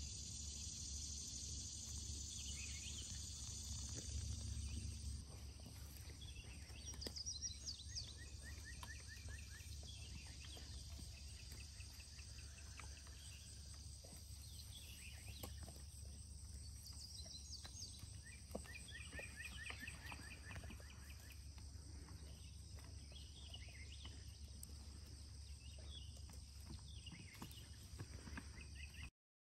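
Summer field ambience: a faint, steady high insect drone with short rapid chirping trills every few seconds over a low rumble. It cuts off suddenly near the end.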